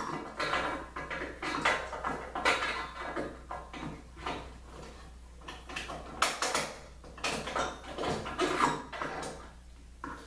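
Irregular metallic clinks, knocks and rattles of clamps and metal parts being handled and fitted, over a low steady hum; quieter near the end.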